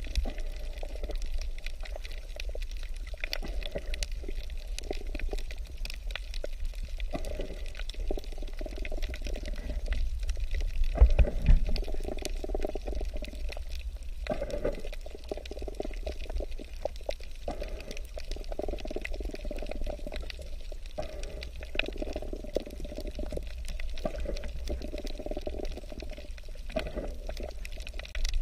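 Underwater sound: a steady low rumble with spells of bubbling every few seconds and many scattered small clicks.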